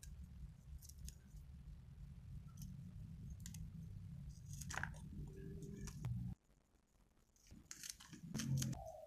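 Faint crisp snapping and crunching of fresh genjer stems being handled and cut with a blade, loudest in a few sharp crunches near the end. A steady low hum underneath stops abruptly about six seconds in.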